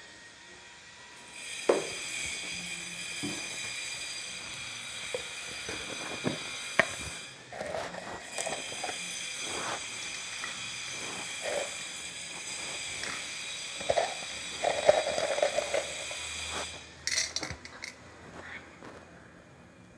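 Cooking oil heating in an iron kadai: a steady hiss with scattered crackles and sharp pops. It cuts off about 17 seconds in.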